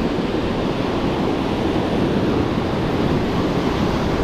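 Surf washing steadily on a beach, with wind buffeting the microphone.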